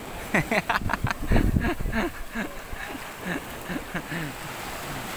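Sea waves washing onto a sandy shore: a steady rushing noise that grows toward the end. Brief snatches of voices come in the first couple of seconds.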